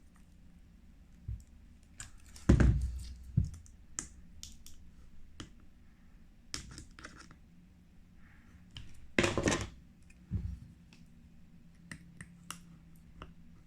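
Small tools clicking and scraping on a phone's cracked back glass as the laser-loosened glass is worked off, with two louder gritty scrapes, one about two and a half seconds in and one about nine seconds in. A faint steady hum runs underneath.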